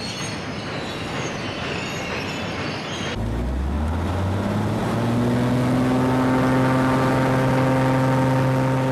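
A noisy rumble and hiss of machinery, then, about three seconds in, a sudden change to a diesel engine on a cementing pump unit winding up in pitch and settling into a steady drone.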